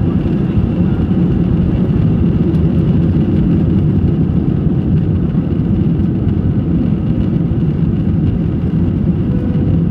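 Airbus A319 cabin during take-off: the jet engines run at take-off thrust as a loud, steady, deep noise with a faint steady high whine above it, while the airliner speeds down the runway and lifts off.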